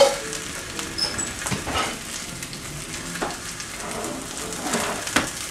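Chicken breasts sizzling in a nonstick frying pan, with a slotted spatula scraping and knocking against the pan now and then as it is worked under the pieces, hardest at the start and again near the end.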